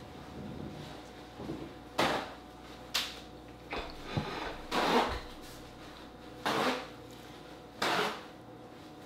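King crab leg shell being cracked and broken apart by hand: a series of sharp cracks and snaps, roughly one every second or so.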